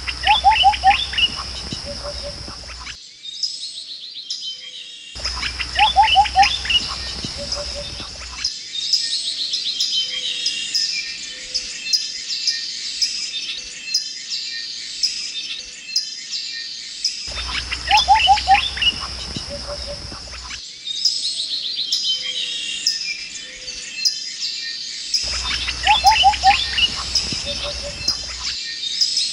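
Birds chirping and trilling, from a sound-effects track made of short clips that cut in and out abruptly and repeat. Some of the clips carry a low hum underneath.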